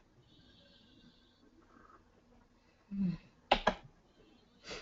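Quiet room tone broken about three seconds in by a brief low murmur, then a few sharp clicks in quick succession and one more near the end.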